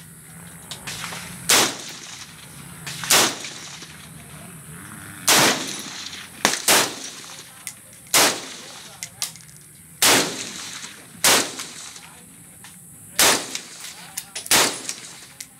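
Single rifle shots from a semi-automatic AR-15-type rifle with a 20-inch M16A2 upper: about a dozen sharp cracks at an uneven pace, mostly one to two seconds apart with a couple of quicker pairs, and a few fainter shots in between.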